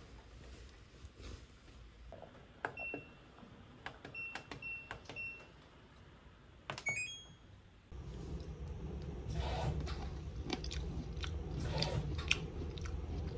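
Control-panel beeps of an LG front-loading washing machine: several short, high beeps as buttons are pressed, then a quick run of tones as the start button is pressed. After that comes the crackling of a clear plastic clamshell box as grapes are picked out of it, over a low steady hum.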